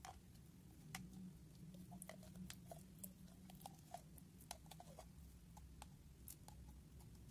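Faint, scattered sticky clicks and crackles of clear slime being scooped out of a clear plastic container with a plastic spoon.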